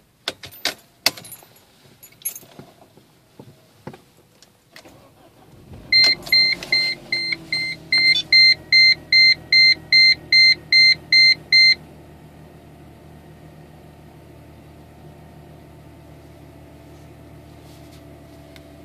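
Keys jangling and clicking in the ignition, then the 2005 Mercedes-Benz C230 Kompressor's supercharged four-cylinder engine starts from cold about six seconds in and settles to a steady idle in Park. As it starts, a seatbelt warning chime beeps about three times a second for roughly six seconds.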